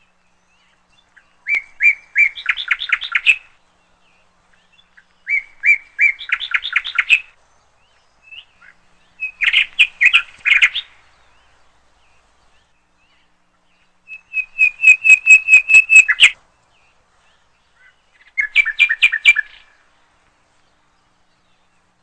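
A small songbird calling in five bursts of rapid, repeated chirps, each about two seconds long, with pauses of a few seconds between.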